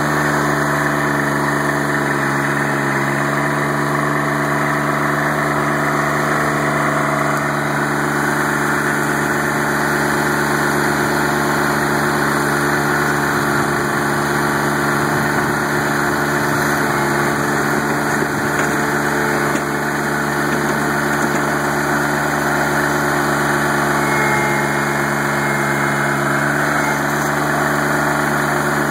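Ford LGT-14D garden tractor's diesel engine running steadily.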